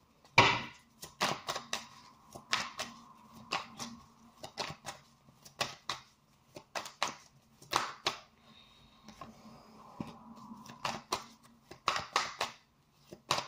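Tarot cards being shuffled by hand: a run of irregular crisp clicks and slaps, several a second.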